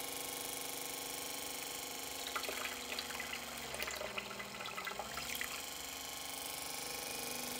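Cooling water splashing from a hose into a bucket for about three seconds, in the middle, over a steady machine hum from the induction heater's cooling setup.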